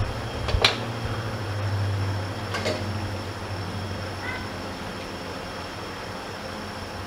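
Chicken curry cooking in a nonstick pot on a gas burner: a steady low hum and hiss, broken by two sharp knocks in the first three seconds and a faint short chirp a little past the middle.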